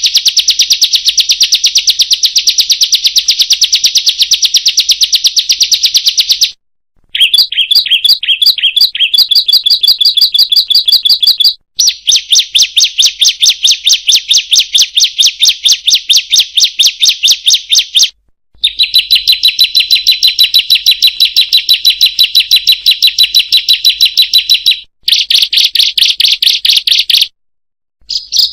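Ciblek song: a very fast, high, chattering trill of rapidly repeated notes, sung in about five long bouts of a few seconds each with short breaks between them.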